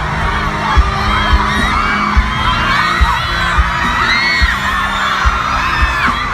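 Music with a thudding bass beat a little more than once a second, under a crowd of many high-pitched voices screaming.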